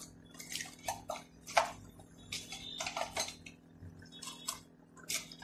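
Metal kitchen utensils clinking and rattling against each other as they are handled and set into cardboard organizer compartments: a quick run of sharp clinks, the loudest about a second and a half in.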